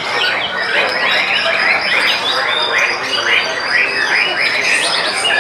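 White-rumped shamas singing: a dense, unbroken stream of quick whistled phrases with rapidly rising and falling notes, several birds overlapping at once.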